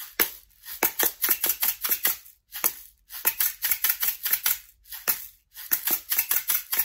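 Homemade shaker, a clear plastic container with a pink lid filled with dry grains, shaken in a quick rhythm of about six strokes a second. The strokes come in short phrases with brief pauses between them.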